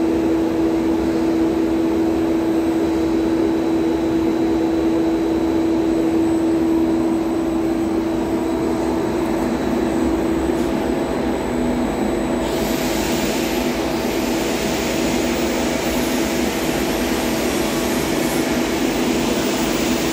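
Centrifugal blower running steadily, blowing air through a flow-meter test pipeline: a strong, even hum with a rush of air. About twelve seconds in a brighter, airy hiss comes in and stays.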